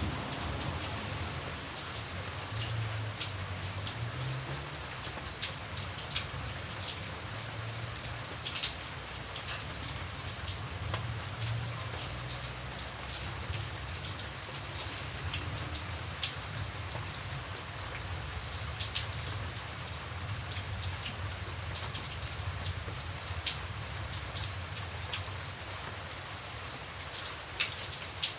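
Light steady rain, with individual drops ticking sharply now and then over an even hiss. A low rumble runs underneath and is a little stronger near the start.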